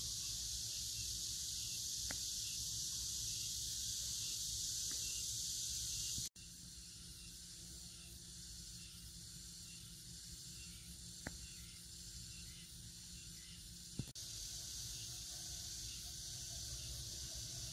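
Outdoor ambience dominated by a steady, high-pitched chorus of insects, over a faint low rumble. About six seconds in it breaks off for an instant and comes back quieter, and there is a short click near fourteen seconds.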